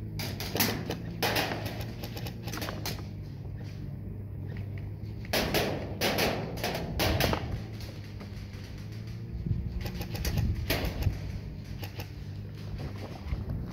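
Airsoft guns firing in short bursts of sharp clicking shots, a dozen or so bursts spread unevenly, over a steady low hum.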